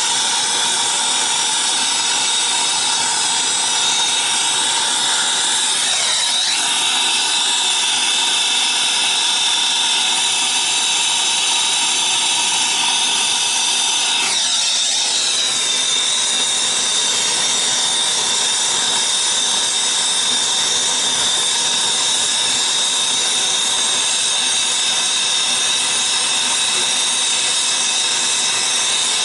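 Brazing torch flame hissing steadily at copper refrigerant line joints, with a constant high whine running under the hiss.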